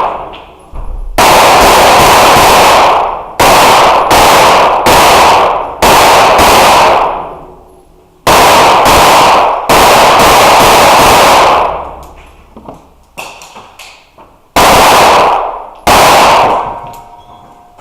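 Pistol shots fired at a fast, uneven pace, about ten in all, each followed by a long echo that dies away over a second or two in an indoor range. Partway through there is a few-second pause with only faint clicks before the last two shots.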